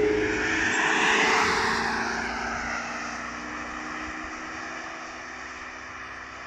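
Cars passing close by on a country road, engine note and tyre noise swelling about a second in, then fading steadily as they drive away.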